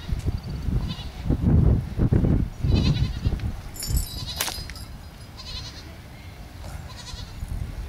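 Goats bleating a few times in short wavering calls, over heavy low rumbling bursts. A single sharp click about four and a half seconds in.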